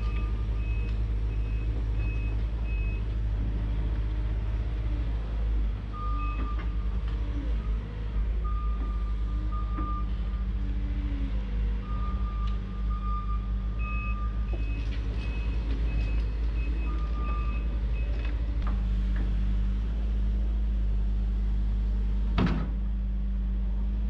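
Tracked excavator's diesel engine running steadily under digging work, with its alarm sounding in runs of short, high, evenly spaced beeps. A single sharp knock comes near the end.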